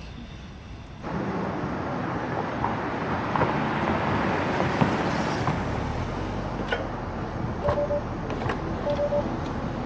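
Street traffic noise that comes in suddenly about a second in and then runs steadily. A low hum joins about halfway, and near the end there are short beeps, twice, about a second and a half apart.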